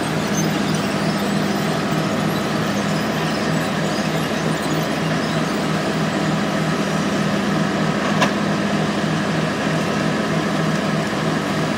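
Heavy logging equipment's diesel engine running steadily, a constant low drone, with a short click about eight seconds in.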